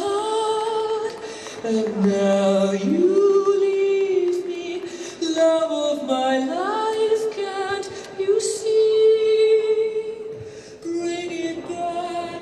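Slow dance music led by a woman's voice singing long held notes that slide up into the next pitch.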